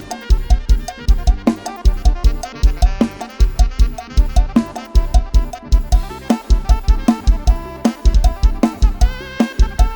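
Thai lam sing dance music. A drum kit drives a fast, steady beat on bass drum and snare under a melodic line.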